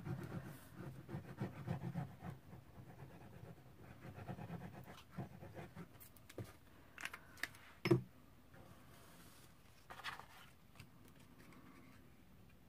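Faint handling noises of card and paper being glued to silver foil on a worktop: light rustles, scrapes and small taps, with a sharper knock about eight seconds in.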